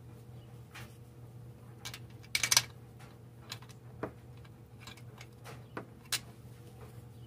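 Scattered sharp clicks and light taps of parts being handled by hand around the PCV valve on the engine block, the loudest cluster about two and a half seconds in, over a low steady hum.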